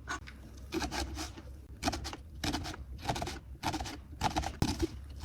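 A kitchen knife cutting a red onion on a cutting board: a run of short slicing strokes, roughly one every half second.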